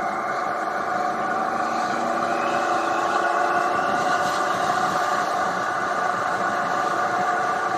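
2018 Triumph Tiger 800 XRt's inline three-cylinder engine running steadily under way, its note rising slightly between two and four seconds in.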